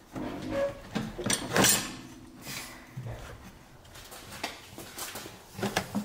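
Stainless steel exhaust pipes knocking and scraping as the rear section is pushed into its hanger and its pipe ends are slid into the cross pipe's sealed ball-and-socket slip joints. A burst of clunks comes between one and two seconds in, followed by lighter scattered knocks.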